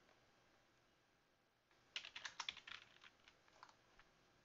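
Faint keyboard typing: a quick run of key clicks starts a little under two seconds in and lasts about two seconds.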